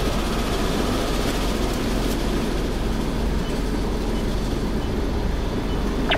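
Daifuku drive-through car wash gantry running, its rotating brushes and water spray washing a car, heard as a steady rumble and hiss from inside a waiting car. A short, sharp squeak sounds near the end.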